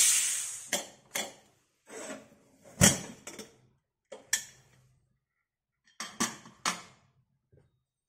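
A short hiss of leftover steam that fades within about a second as the pressure cooker's whistle weight is lifted. Then a run of metal clicks and clanks as the cooker lid is twisted open and lifted off, the loudest clank about three seconds in and a last few near the end.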